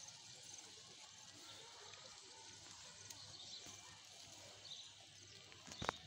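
Faint tearing and munching of goats and sheep cropping grass, close to near silence, with a single sharp click near the end.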